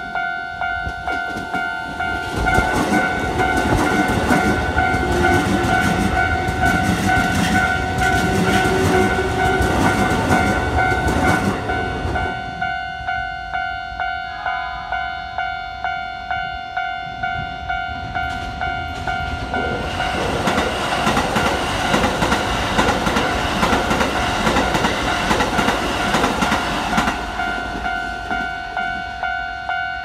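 Japanese level-crossing alarm ringing steadily in repeated dings while Keikyu electric trains pass over the crossing. One train rumbles and clatters by in the first third and a second one about two-thirds of the way in, the alarm going on between and after them.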